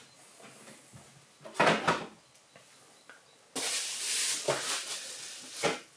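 A bubble-wrapped plastic model-car display box handled on a tabletop: a short knock about one and a half seconds in, then about two seconds of rustling and scraping as it is slid across the table.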